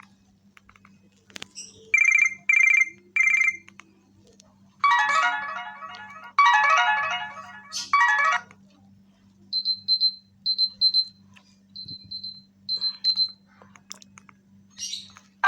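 Strawberry ST2 feature phone's speaker playing short tone previews: three quick beeps, then a few seconds of chiming melody, then a run of short high beeps.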